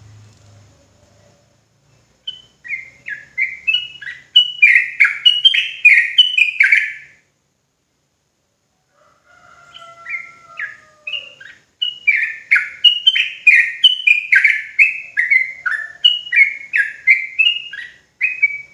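Yellow-vented bulbul (trucukan) singing its rapid 'ropel' song: fast runs of short, loud falling notes, in two bouts that begin about two seconds in, broken by a pause of about two seconds in the middle.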